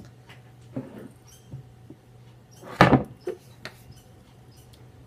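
A wooden scroll frame holding cross-stitch fabric being handled, making a few light knocks and rustles and one loud sharp knock just under three seconds in, over a steady low hum.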